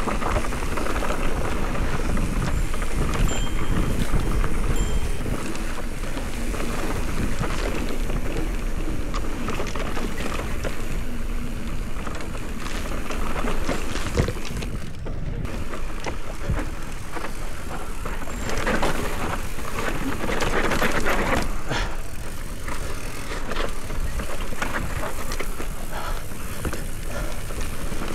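Specialized Turbo Levo electric mountain bike descending a loose, dusty trail: tyres crunching over dirt and gravel, with the bike rattling and clicking over bumps.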